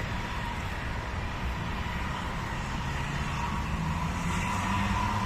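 Low hum of a vehicle engine, getting a little louder in the second half, over steady outdoor noise with a faint, steady high whine.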